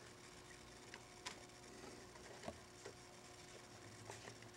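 Near silence: room tone with a faint steady hum and a few faint, scattered clicks.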